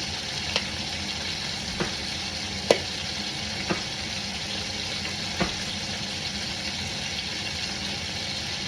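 Bone-in chicken pieces searing in hot oil in a Dutch oven: a steady sizzle. Five short, sharp clicks or knocks fall through it, the loudest about two and a half seconds in.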